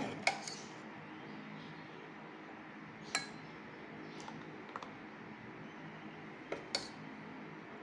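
Steel ladle clinking against the rim of a steel cooking pot several times while custard is scooped out and poured into a silicone popsicle mold, over a faint steady background.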